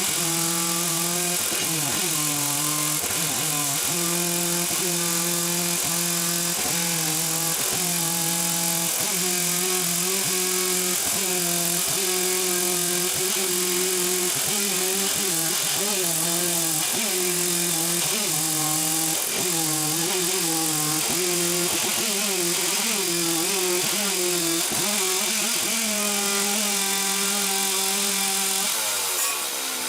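Two-stroke chainsaw running at high throttle while ripping lengthwise down a log, its bar guided along metal rails as a homemade chainsaw mill. The engine note dips again and again as it bogs under the load of the cut, and it drops away near the end.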